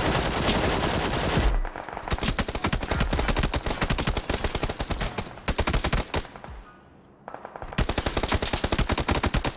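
Rapid automatic gunfire in long bursts, with a short pause about seven seconds in.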